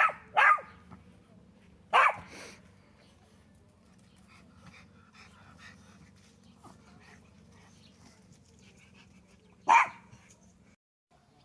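Chihuahua barking in short, sharp yaps: two quick ones at the start, one about two seconds in, and a last one after a long pause near the end.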